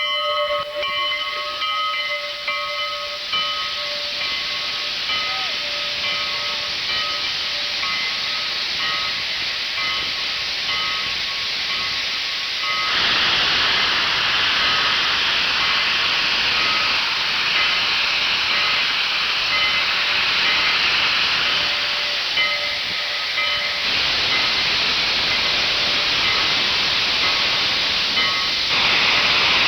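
Steam train hissing, a loud steady rush of noise with faint held tones underneath; the hiss steps up louder about thirteen seconds in and again near the end.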